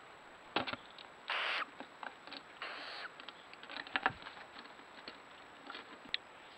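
Barn owl at a wooden nest box: knocks and scrabbling of its claws on the wooden perch about half a second in, two short harsh hissing calls in the next couple of seconds, then scattered taps and clicks on the wood as it settles.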